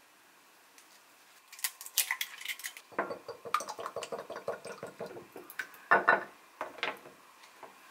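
An egg is cracked into a small ceramic dish with a few sharp clicks, then beaten fast with metal chopsticks, which clink rapidly against the dish. A couple of louder knocks near the end.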